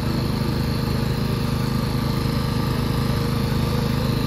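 Small petrol engine of a hydraulic rescue-tool power unit running steadily.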